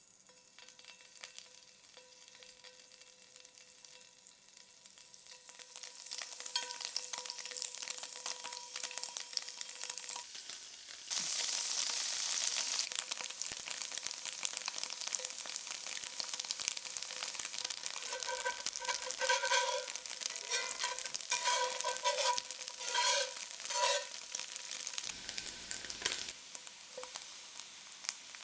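Cubes of firm tofu sizzling and crackling in hot oil in a cast-iron skillet. The sizzle builds as more cubes go in and jumps louder about eleven seconds in. Later there are several short metallic ringing taps as metal tongs turn the cubes against the pan.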